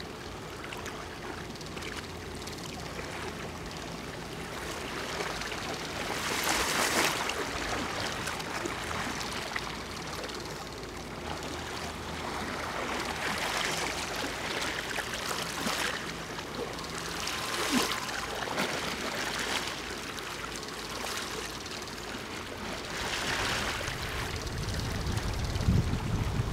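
Rushing water noise that swells and fades every few seconds, over a faint low hum.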